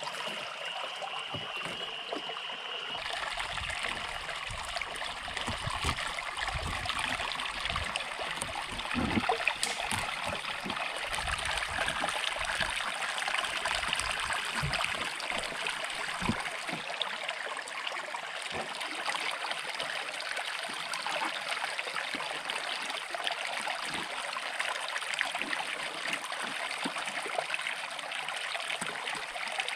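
River water flowing and rippling past snags in a steady, even rush, with occasional soft low knocks.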